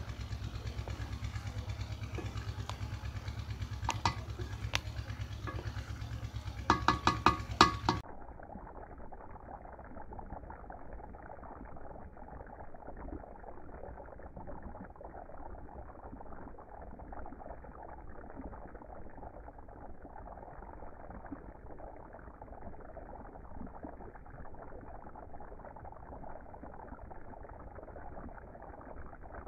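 A low rumble with sharp metal clicks and a quick clatter near eight seconds, from the wooden spoon and lid against the aluminium cooking pot. Then, for the rest of the time, a steady, muffled bubbling of rice cooking in boiling broth.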